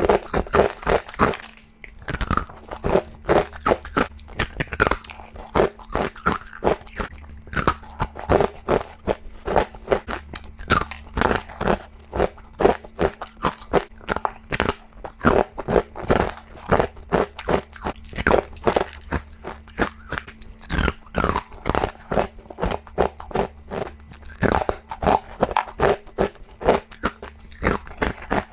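Ice being bitten and crunched between the teeth in rapid succession, a steady run of sharp crunches, with a faint steady low hum beneath.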